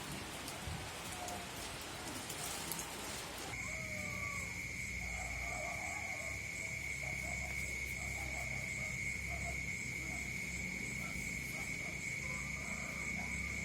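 A steady hiss, likely rain, for the first few seconds. After about three and a half seconds it gives way to an unbroken, high-pitched animal call, a single held tone that drones on for about ten seconds.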